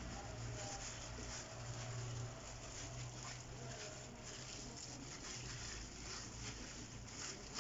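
Faint handling noises as fillings are laid on a gluten roll, with light ticks near the end, over a steady low hum.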